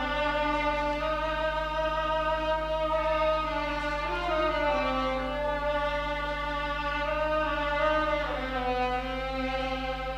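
Solo violin playing a slow melody in long held notes, sliding to a new note about four seconds in and again near the end.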